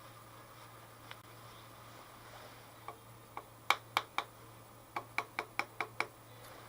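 Light, sharp taps on the workpiece setup on a rotary table, nudging it toward center while it is dialed in with an indicator: about a dozen taps in two quick groups, the first starting about three seconds in, each with a short ringing tail, over a steady low hum.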